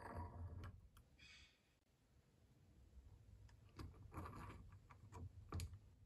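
Faint clicks and light metal-on-metal scrapes as a nail puller's jaw head is fitted by hand into its painted handle tube. There is a cluster of clicks at the start, a short scrape about a second in, and more clicks in the second half.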